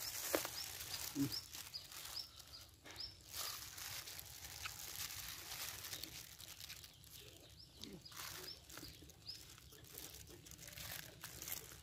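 Faint eating sounds: chewing of leaf-wrapped pounded chicken and raw greens, with soft clicks and the crinkle of plastic food gloves as the bites are handled. Birds chirp lightly in the background.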